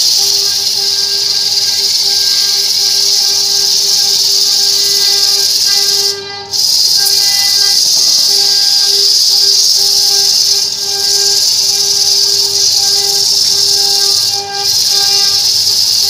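A belt-driven abrasive disc spinning while a workpiece is pressed against it, giving a loud, steady grinding hiss over a whine. The noise drops out briefly three times, about six, eleven and fourteen seconds in, as the piece is eased off the disc.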